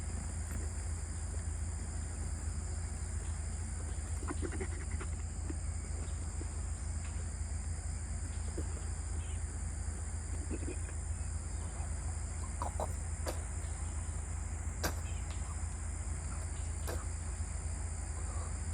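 Background ambience: a steady high insect drone over a low hum, with a few faint short animal calls and a handful of sharp clicks in the second half.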